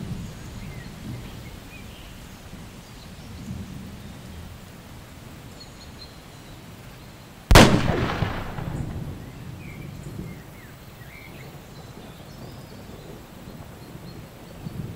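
Thunderstorm ambience: a low rolling rumble with rain hiss, broken about halfway through by one sharp, loud thunderclap that rumbles away over a couple of seconds.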